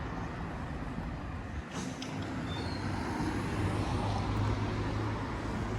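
Road traffic on a busy street: a steady rush of passing vehicles, with a heavier vehicle's low engine hum growing louder from about two seconds in.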